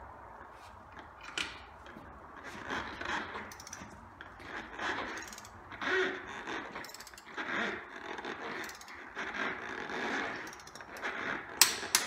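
Click-type torque wrench being ratcheted in repeated strokes on the bolts of a HMMWV split-rim beadlock wheel, set at 125. Near the end comes one sharp click: the wrench breaking over as the bolt reaches its set torque.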